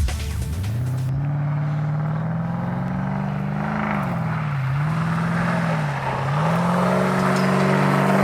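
Porsche Cayenne S's V8 engine accelerating: the engine note climbs, dips and rises again twice, then holds steady.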